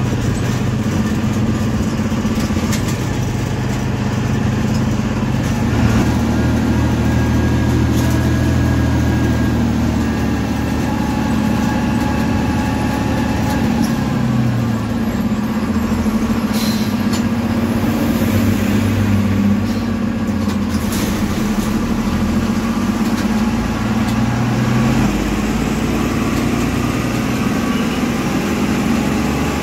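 Diesel engine of an MSRTC bus running, heard from inside the front of the bus, its low note shifting down and back up a few times as the bus slows and pulls on.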